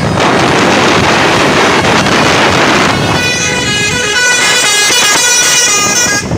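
A loud rushing noise, then about three seconds in the ALS 103 bus's telolet horn plays a tune of several stepped notes for about three seconds and cuts off suddenly.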